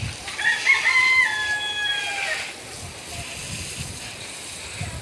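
A rooster crows once, a single drawn-out call of about two seconds, over the faint steady hiss of a hose spray nozzle sprinkling water onto soil.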